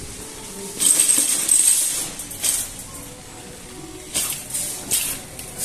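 Wire shopping cart rattling and jingling as it is pushed across a hard store floor, in uneven bursts.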